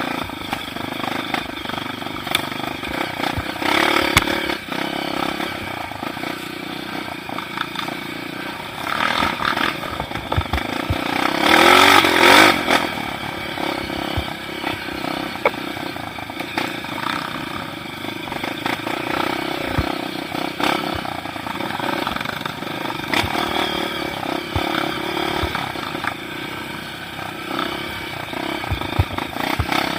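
Motorcycle engine running steadily, revving up and getting louder briefly about twelve seconds in.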